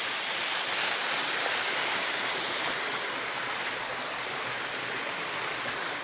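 A small mountain waterfall and stream rushing steadily over rock slabs into a pool, an even splashing rush of water.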